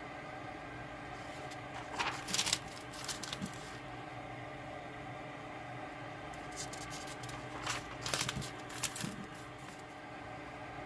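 Spiral notebook pages being turned by hand: a papery rustle and flap about two seconds in, and another longer run of rustling about eight seconds in.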